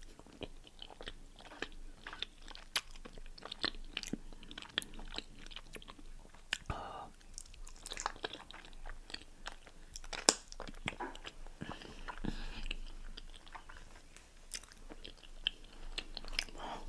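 Close-miked eating: biting and chewing food, with many quick wet clicks and smacks at an uneven pace.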